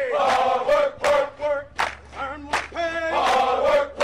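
A group of voices chanting together in unison, with a sharp beat between lines: a military-style marching cadence.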